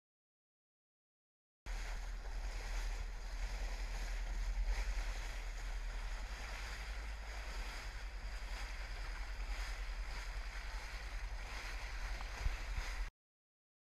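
Boat under way, heard through the camera's microphone: steady rushing of water and wind buffeting the mic over a low rumble. It starts nearly two seconds in and cuts off suddenly near the end.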